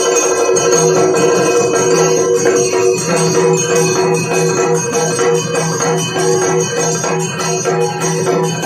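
Yakshagana dance accompaniment without singing: a steady drone under a fast, busy pattern of drum strokes and small jingling metal percussion, with the dancer's ankle bells.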